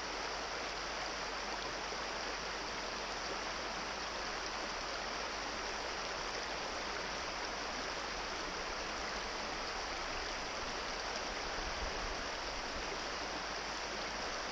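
Small rocky brook running over stones in shallow riffles: a steady, even rush of water.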